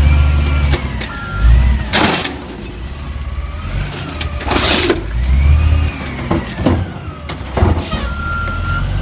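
Automated side-loader garbage truck working its hydraulic arm: the engine revs up twice with a whine that rises and falls as the arm lifts and lowers a recycling cart. Loud clatter of recycling tipping into the hopper about two seconds in and again near five seconds, and an on-off beeping near the end.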